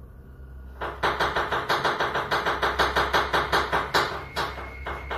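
Rapid, loud knocking from a wooden dining table with a laptop on it, about six knocks a second. It starts about a second in, stops after about three and a half seconds, and a few last knocks follow near the end.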